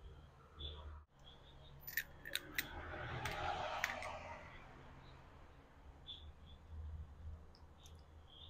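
Hand tools worked on a motorcycle engine under assembly: a quick run of four or five light metallic clicks about two seconds in, then a soft rasping rustle for a second or two, over a low steady hum.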